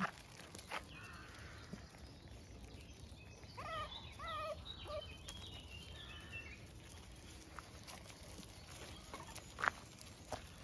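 Puppies yipping: a quick run of high, wavering yelps about four seconds in, with a few footsteps crunching on gravel.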